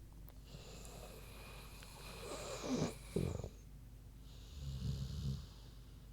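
American Bulldog snoring in her sleep: a loud snore about three seconds in, then a shorter, fluttering snore near the end, with breathy hiss around them.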